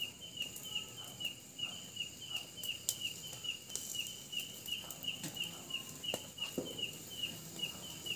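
A cricket chirping in a steady rhythm, about three chirps a second, over a continuous high-pitched insect drone, with a few sharp clicks.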